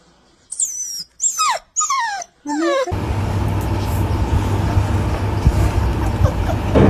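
Puppy whimpering: several short, high whines that fall steeply in pitch. From about three seconds in a steady rumbling noise takes over.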